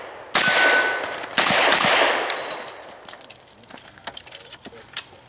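Two loud revolver shots about a second apart, each echoing away, followed by a string of quieter metallic clicks and clanks.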